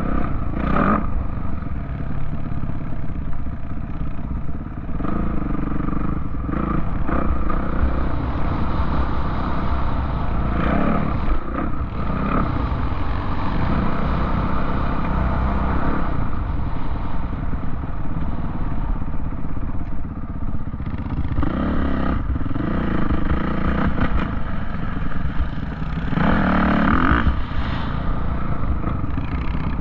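Off-road vehicle engine running continuously under changing throttle, revving up and easing off several times, with its hardest rev about 26 to 28 seconds in.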